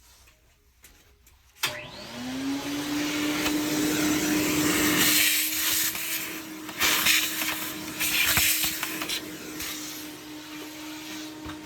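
A vacuum cleaner is switched on with a click about two seconds in. Its motor spins up to a steady hum under a rush of air that swells louder in places. It is switched off near the end and the motor winds down.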